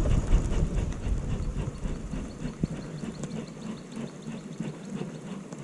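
Fishing reel being cranked steadily to retrieve a buzzbait, a fast even clicking and whirring, with low rumble from handling the rod in the first second.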